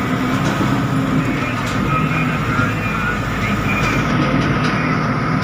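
Cab interior sound of a Caterpillar 777D haul truck driving loaded: its Cat 3508B V8 diesel runs steadily under load with a low drone over road rumble.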